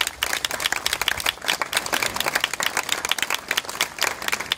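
Audience applauding, many people clapping their hands at once.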